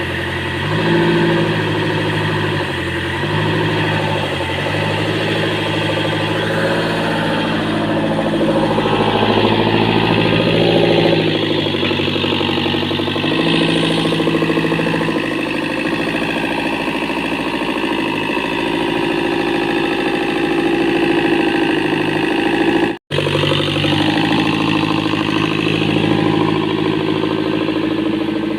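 Komatsu diesel engine running steadily at a low speed, in an engine said to be losing compression. The sound breaks off for an instant about three-quarters of the way through.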